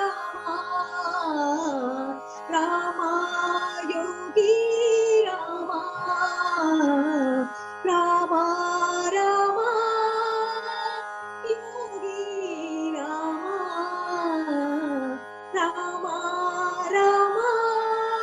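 Carnatic-style devotional music: a melody line gliding up and down in short phrases over a steady drone, with no words sung.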